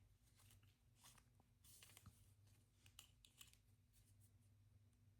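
Near silence with faint, scattered scratchy rustles and clicks of cotton yarn being wrapped and pulled through the hangers by hand.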